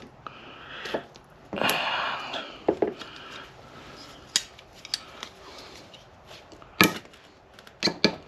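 Snap ring pliers working a steel snap ring into its groove over a new ball joint in a Jeep JK steering link: scattered metallic clicks and scrapes, the sharpest click about seven seconds in.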